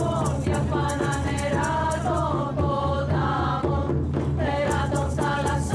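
A group of women's voices singing a chant together over a steady beat of frame drums struck with beaters.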